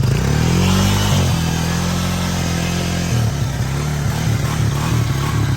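Honda off-road vehicle's engine revving hard under load while pushing through deep water. The pitch climbs in the first half second, holds, then drops about three seconds in and wavers up and down.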